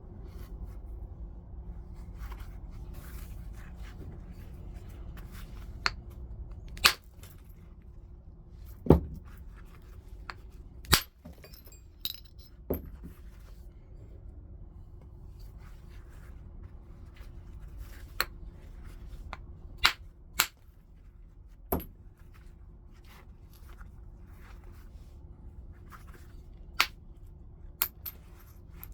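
Stone being flintknapped: about a dozen sharp, separate strikes of a knapping tool on the rock, coming at irregular intervals, with faint scraping between them. A low steady hum runs underneath.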